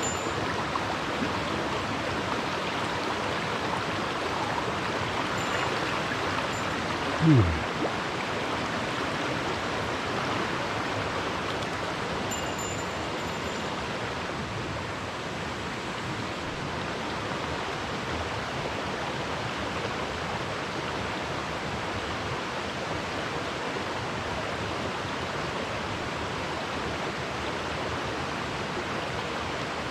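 Small mountain stream rushing over rocks, a steady wash of water. About seven seconds in there is one brief, loud sound that drops quickly in pitch.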